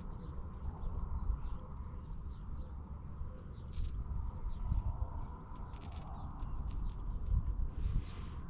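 Light clicks and handling noise from hands working a lure's treble hooks out of a small perch, most of them in the second half, over a steady low rumble. Birds chirp faintly now and then.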